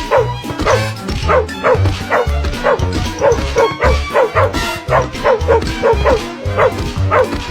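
Fast cartoon chase music with a pulsing bass line and a dog barking over it, short falling yelps about three or four a second.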